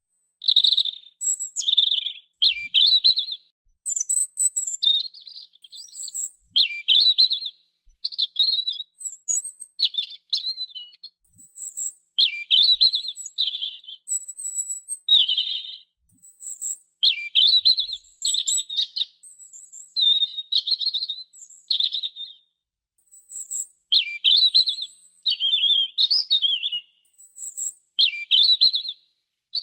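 Robin singing: a steady run of short warbled phrases, each under a second long, with brief pauses between them and thin high notes mixed in.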